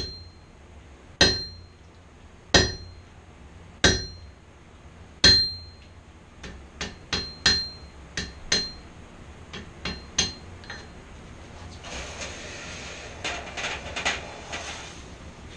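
Hammer blows on a red-hot steel bar over a hot-cut hardy on the anvil, cutting off its end. Five heavy blows land about a second and a quarter apart, each leaving a bright ring, then a run of lighter, quicker blows follows. A few soft clinks and rattles come near the end.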